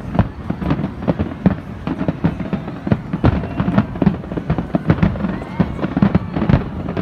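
Aerial fireworks shells bursting in a dense, irregular run of bangs, several a second.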